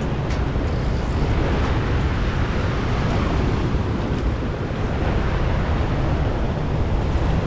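Steady wind rumbling on the microphone over open salt water lapping and washing around the wader.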